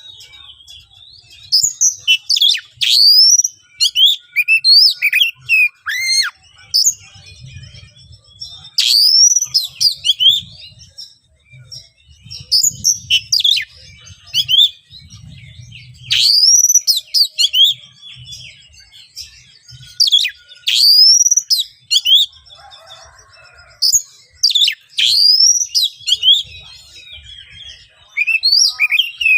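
Oriental magpie-robin (kacer) singing a harsh, loud song, the aggressive type used to provoke rival males. Each phrase of sweeping whistled notes rises and falls away and lasts a second or two, with a new phrase every few seconds.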